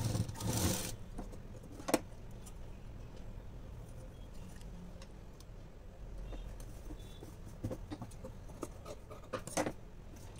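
Cloth rustling and small clicks as a blouse's fabric is handled and smoothed at a sewing machine: a rustle at the start, a sharp click about two seconds in, and another rustle near the end.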